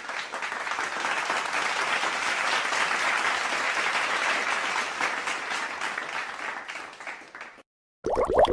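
Audience applause: steady, dense clapping that fades out about seven seconds in.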